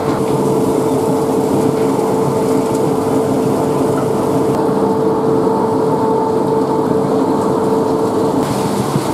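Wood briquetting plant machinery running steadily, with the belt conveyor carrying sawdust: a loud, even mechanical rumble with a constant hum. The higher hiss drops away about halfway through and returns near the end.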